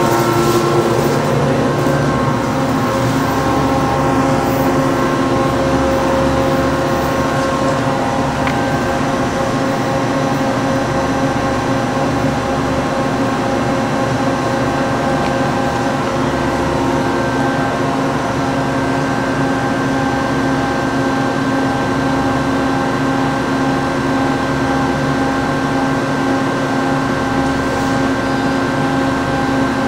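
The 1992 Matsuura MC-1000V7DC twin-spindle CNC vertical machining center running under power, giving a steady mechanical hum made of several steady tones.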